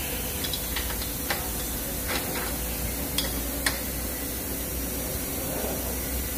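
Sharp metal clicks and clinks, about six at uneven spacing over the first four seconds, as a wrench lengthened with a steel cheater pipe is pulled to tighten the lower control arm bolts. A steady hiss runs underneath.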